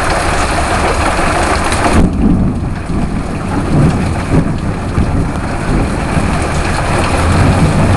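Heavy rain, with water spilling over the edge of a gutter whose downspout is clogged and splashing down into rain barrels. The steady hiss eases sharply about two seconds in.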